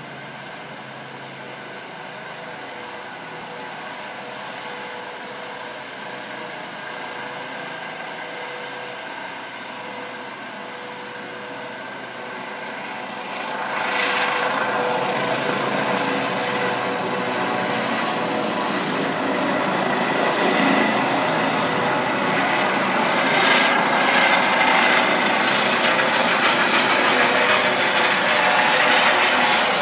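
Air-rescue helicopter lifting off and climbing away: a steady turbine whine and rotor sound that grows louder, jumps sharply about halfway through as the helicopter rises clear, and stays loud as it climbs overhead.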